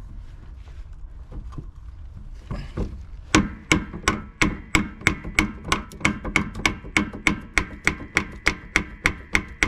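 Rapid, even hammer strikes, about three a second, starting about three seconds in, tapping the pinion assembly squarely into the truck's rear differential housing.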